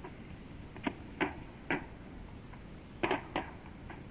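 About five sharp pops, spaced irregularly over a steady tape hiss: ammunition cooking off and exploding in a burning ammo dump, recorded on a portable tape recorder.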